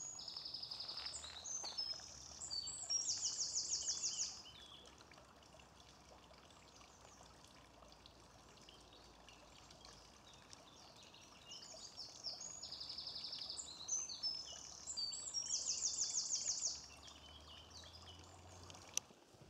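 A small songbird singing two long, high-pitched songs about ten seconds apart. Each is a run of varied quick notes ending in a fast, even trill of about a dozen notes. A faint steady background hiss lies beneath.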